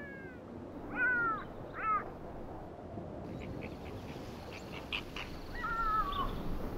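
Black-backed jackal calling: short, high, falling yelps, two in quick succession, then a longer wavering wail near the end.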